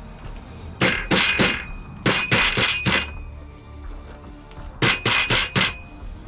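Rubber mallet striking a pin punch to drive out the stiff front-sight pins of an airsoft M4: three quick runs of four or five blows each, every blow with a short metallic ring.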